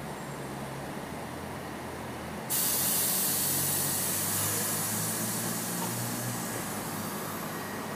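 R62A subway train standing at the platform with a steady low hum. About two and a half seconds in, a sudden loud hiss of air starts and slowly fades: the air brakes releasing just before the train pulls out.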